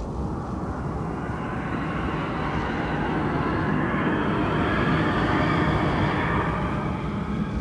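A steady rushing drone that slowly swells and grows louder, with faint high tones above it.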